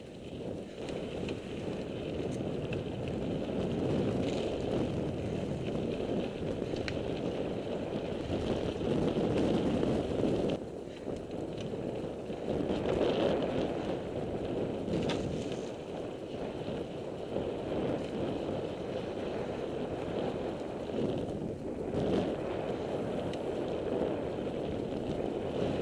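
Mountain bike ridden over a rough dirt trail: a steady rumble of tyres and bike on the rutted ground, easing briefly about eleven seconds in and again about twenty-two seconds in.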